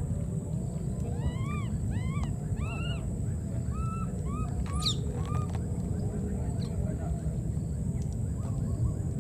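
Baby monkey crying: a run of about ten short, arched calls, two or three a second, with one sharper high squeal about five seconds in. The calls die away by about five and a half seconds, leaving a steady low background rumble.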